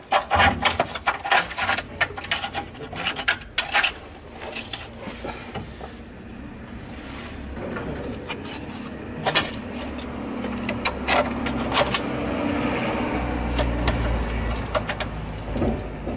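Wrench work on the bolts of a new lower engine mount (torque rod): runs of quick metallic clicks and scraping, loudest in the first few seconds, with a few single clicks later. A low rumble of the camera being handled near the end.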